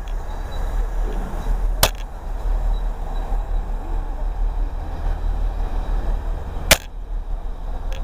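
Heritage chocolate-and-cream passenger coaches rolling slowly past along the platform, a steady low rumble, with two sharp clicks about five seconds apart.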